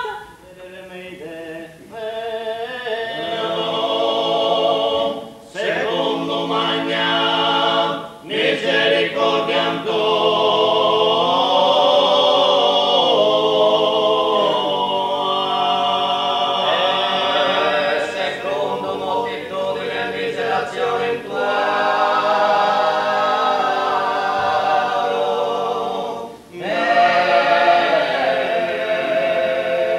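A small group of men singing a cappella in harmony, in sustained phrases with a few short breaths between them.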